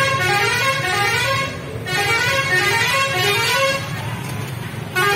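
A vehicle's musical horn playing a short run of notes, the tune repeating about every two seconds, over a steady low traffic and motor rumble.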